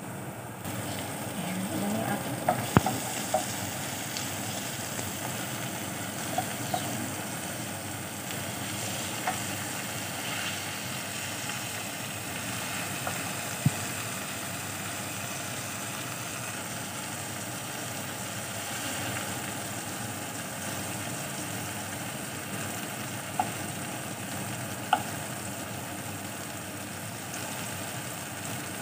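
Sliced onions and halved cherry tomatoes sizzling as they fry in a nonstick frying pan, growing louder about a second in. They are stirred with a wooden spoon that knocks sharply against the pan now and then.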